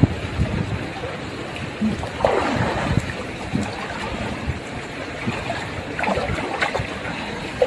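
River water lapping and gurgling around inner tubes drifting on a calm current, with a few brief louder splashes.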